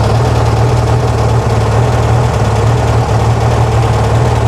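1968 VW Karmann Ghia's air-cooled flat-four idling steadily, freshly started on newly installed EMPI 34 dual carburettors.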